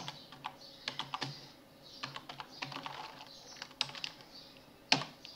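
Computer keyboard typing: irregular, unhurried keystrokes, with one louder key strike near the end.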